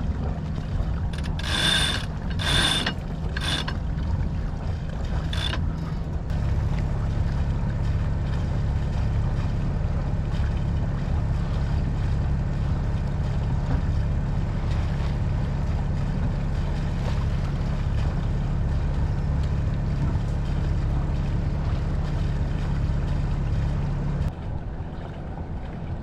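Sailboat cockpit winch ratcheting in short bursts of clicks as it is turned, several times in the first few seconds. A steady low rumble of wind and water follows.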